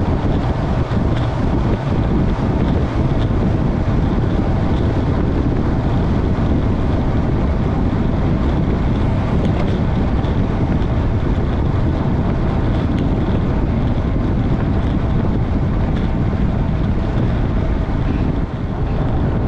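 Loud, steady wind rush buffeting the microphone of a camera on a road bike descending at close to 40 mph.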